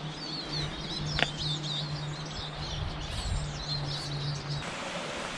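Small songbirds chirping and singing over a steady outdoor hiss, with a steady low hum underneath and one sharp click about a second in. The birdsong and hum cut off suddenly near the end.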